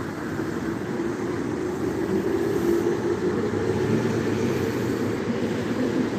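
Steady low rumble of vehicle noise, with a faint steady hum through the middle.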